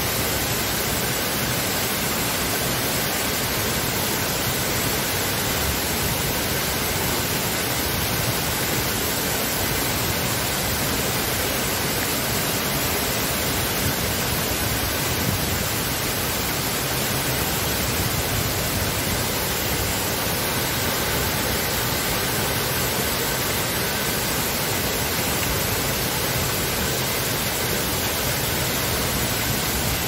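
Waterfall streaming down a cliff face and cascading over boulders: a steady, even rush of water.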